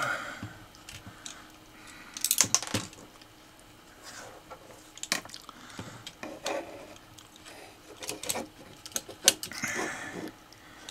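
Scattered clicks, taps and light knocks of hands handling a small robot rover chassis, its wheels and the Raspberry Pi board mounted on it.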